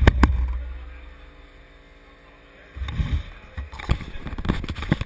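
Camera handling noise: a low rumble with sharp clicks and knocks near the start, then again from about three seconds in.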